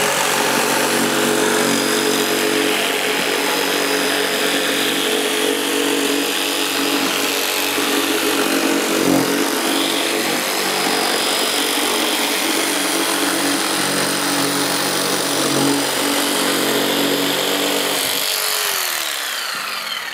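Festool PS 300 jigsaw running steadily as it cuts tight curves through a 28 mm laminate worktop with a chipboard core. Near the end it is switched off and its motor winds down, the pitch falling.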